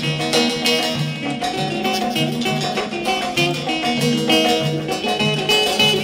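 Instrumental break of a Turkish arabesk song: plucked strings playing a melody over a steady beat, with no singing.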